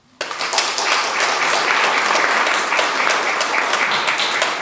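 Audience applause marking the end of a talk. It breaks out suddenly, and many hands clap in a dense, steady patter.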